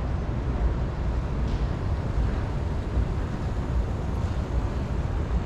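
Shopping-mall interior ambience: a steady low rumble under an even wash of noise, with no distinct event standing out.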